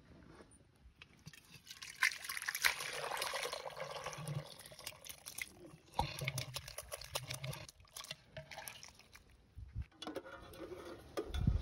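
Liquid pouring and trickling from a tilted clay pot into a metal vessel, in three separate spells of splashing.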